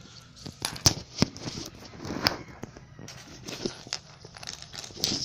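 Handling noise on a phone's microphone: irregular knocks, taps and rubbing rustles as the phone is gripped and moved, the sharpest knock about a second in.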